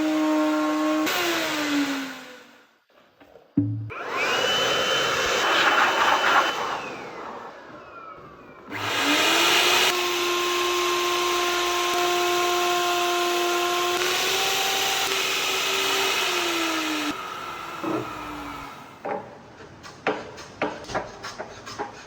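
Electric power tool working wood: its motor runs with a steady whine and winds down about two seconds in. It starts again briefly, then runs steadily for several seconds before winding down again. Light knocks and clicks follow near the end.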